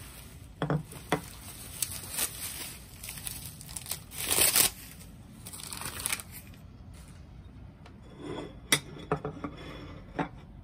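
Bubble wrap crinkling and rustling as it is pulled off ceramic dinner plates, loudest about halfway through. Sharp clinks of the plates being handled and set down come just after the start and again in the last two seconds.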